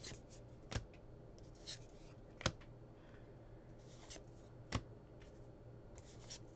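Cardboard trading cards from a 2021 Topps Heritage baseball pack being flipped through one at a time, with soft sliding rustles and three sharp card snaps about two seconds apart as cards come off the stack.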